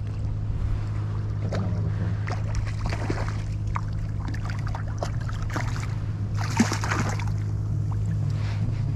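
A steady low hum runs throughout, with scattered small clicks. About six and a half seconds in comes a short, louder burst of splashing as a hooked redfish thrashes at the surface beside a small boat.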